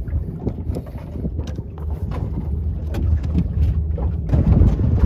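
Wind buffeting the microphone aboard a small boat at sea: a low rumble that grows louder in the second half, with scattered light knocks.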